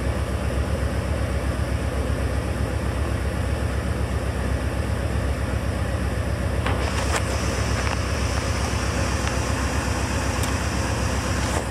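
1984 Corvette's Crossfire Injection 350 small-block V8 idling steadily at about 900 RPM, a fast idle while it warms up from a cold start, heard from inside the cabin.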